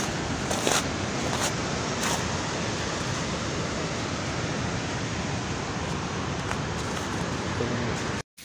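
Steady rushing storm noise on a phone's microphone during a thunderstorm with hail, with a few sharp clicks in the first two seconds. It cuts off abruptly just before the end.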